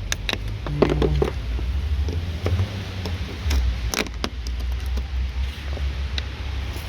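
Scattered clicks and knocks of hands and a screwdriver working on the plastic bumper and light parts of a car, over a steady low rumble.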